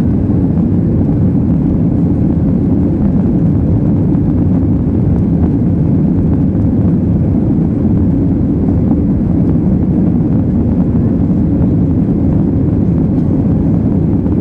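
Steady low roar of a Boeing 737's jet engines and airflow in the climb after takeoff, heard inside the passenger cabin. The level stays even throughout.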